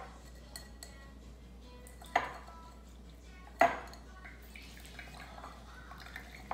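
Two sharp clinks of a stainless mesh strainer against a drinking glass, about two seconds in and again a second and a half later, as a mandarin orange half is pressed through it by hand. Faint background music runs underneath.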